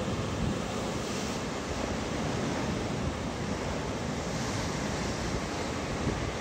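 Big swell breaking and churning as white water against shoreline rocks, a steady rush of surf, with wind on the microphone.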